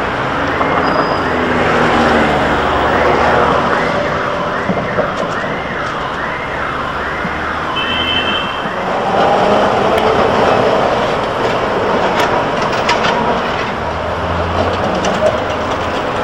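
Emergency vehicle siren wailing up and down a little faster than once a second over steady city traffic noise. It stops about nine seconds in, and the traffic carries on.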